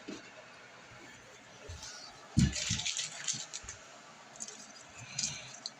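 Kitchen things being handled on a table: a thump about two and a half seconds in, then a second of clattering and rattling, with a few lighter rattles near the end.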